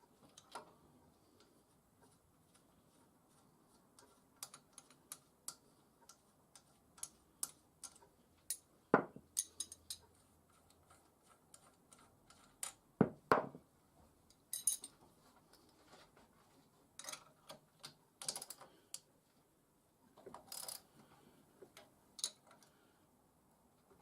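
Irregular clicks and taps of hand tools being handled and worked, with two louder knocks about nine and thirteen seconds in.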